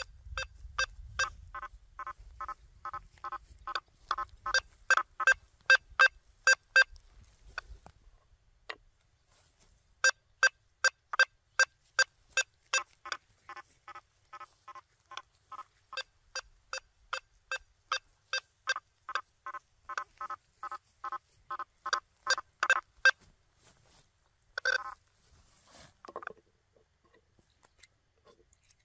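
Quest V80 metal detector's audio tones: a long string of short pitched beeps, about two to three a second, as the 9-inch coil sweeps over a nailboard. The beeps pause for a few seconds about a third of the way in, resume, and stop a few seconds before the end, followed by a brief gliding sound.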